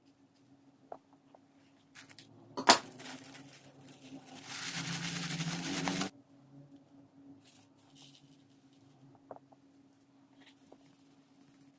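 Hands handling slime-making materials: a sharp knock a little over two and a half seconds in, then a rushing noise for about a second and a half, over a faint steady hum.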